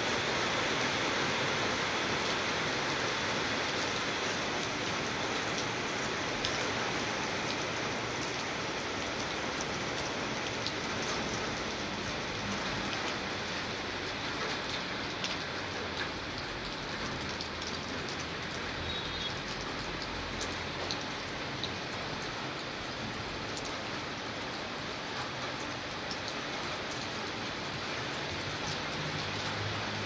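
Steady rain falling: a continuous hiss with many small drop ticks, growing slightly softer as it goes on.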